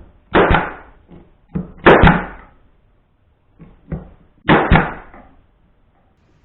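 Porter Cable pneumatic brad nailer firing three times, driving brads into wood: three sharp shots, the second about a second and a half after the first and the third some two and a half seconds later, each trailing off briefly.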